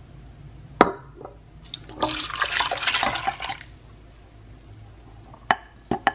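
Warm water poured into a stainless steel stand-mixer bowl onto active dry yeast and sugar, splashing for about a second and a half. A sharp knock comes just before, and a few light clicks near the end.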